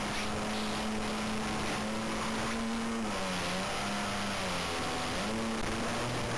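RC model airplane's motor and propeller heard from the onboard camera: a steady droning hum over rushing wind. The pitch drops about three seconds in and climbs back up around five seconds in as the throttle and load change.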